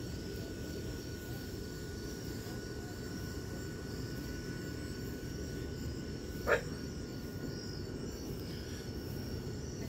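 Steady outdoor night background with a low rumble and a faint, steady high chirring of insects. About six and a half seconds in, one brief sharp squeak stands out as the loudest sound.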